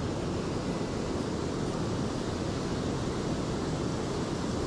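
Steady rush of river water spilling over a low weir.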